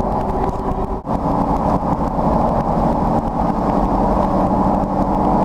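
Steady engine and road noise inside the cabin of the armored storm-chasing vehicle driving along the highway, with a low hum and a steady drone. The sound briefly drops out about a second in.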